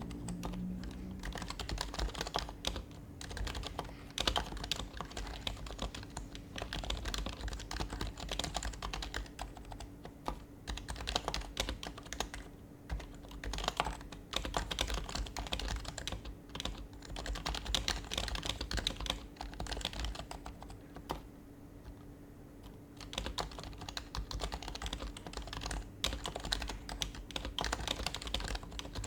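Typing on an HHKB Professional Hybrid Type-S keyboard, its silenced Topre switches giving soft, muted key clacks in quick runs. The typing thins out briefly about twelve seconds in and again around twenty-one to twenty-three seconds.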